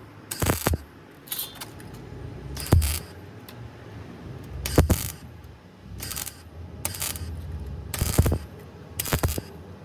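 Arc welder laying short tack welds on a steel repair patch over a rusted truck wheel arch: about seven brief bursts of crackle, one to two seconds apart.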